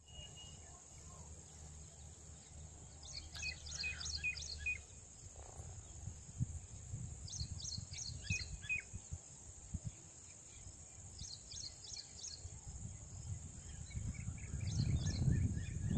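Birds chirping in four short bouts of quick, high calls a few seconds apart, over a low, uneven rumble that grows louder near the end.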